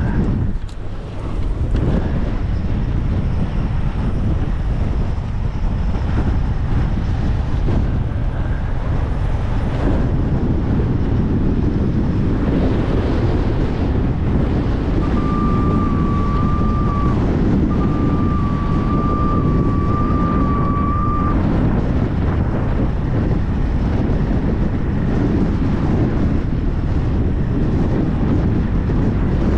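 Strong wind buffeting the microphone despite its wind guard, a steady dense rumble throughout. A thin, high whistle-like tone sounds in two stretches about halfway through.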